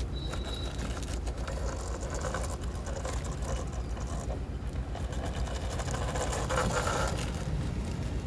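A small motor running steadily with a rapid low pulse, with some shifting noise above it.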